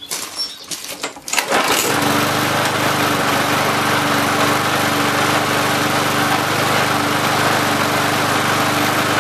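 Briggs & Stratton lawn mower engine starting, catching about two seconds in and then running smoothly at a steady speed. It no longer surges or pulsates, as its primer carburetor now has a new diaphragm and gasket.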